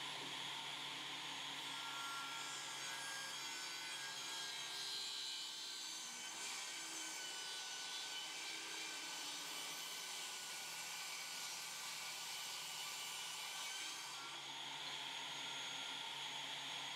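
Small table saw running with its blade square to the table. A hardwood post cap held in a jig is fed past it to cut a 10-degree bevel along one edge. The cut adds a rougher sawing noise from about two seconds in to about fourteen seconds, over the saw's steady running sound.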